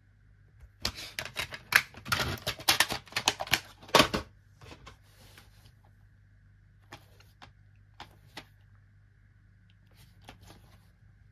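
Plastic DVD case and disc being handled: a quick run of clicks and rattles begins about a second in and lasts about three seconds, then a few scattered single clicks and taps.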